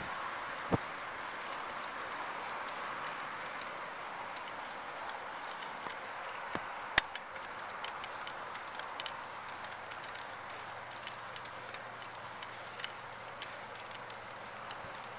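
Steady rolling noise of a recumbent bicycle on a paved trail, its tyres on asphalt mixed with wind on the microphone. A steady high-pitched whine runs underneath, and a few sharp clicks and knocks from the bike break through, the loudest about seven seconds in.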